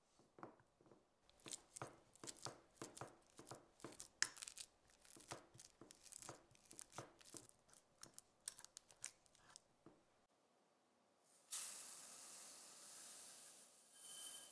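A fork mashing bananas in a glass baking dish: a quick, irregular run of clicks and taps as the tines hit the glass, for about ten seconds. Then dry quinoa grains pour into the dish with a steady hiss for about three seconds.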